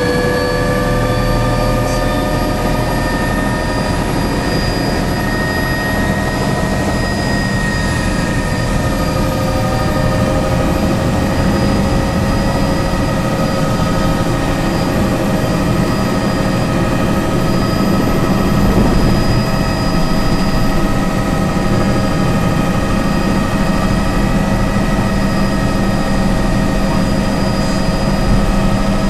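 Helicopter engine and rotor heard from inside the cabin as it lifts off and climbs: a loud, steady drone with several steady whining tones over it, which shift slightly in pitch early in the climb.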